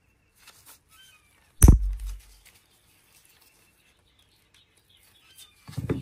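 Handling of a Zippo lighter and pliers on a workbench: one sharp, loud knock about a second and a half in, and a short clatter of metal clicks near the end as the lighter is put back together.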